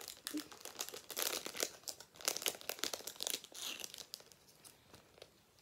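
Crinkly plastic trading-card packaging rustling and crackling as it is handled. Quick, irregular crackles for about four seconds, dying down to faint rustles near the end.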